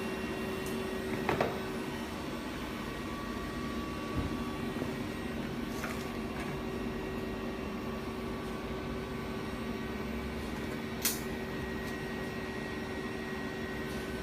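Steady electrical machine hum holding a few constant tones, with a few faint clicks.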